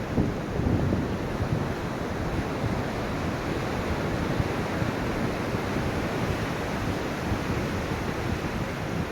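Ocean waves washing onto a shore in a steady, even rush of surf, strongest in the low range, with no single distinct breaker.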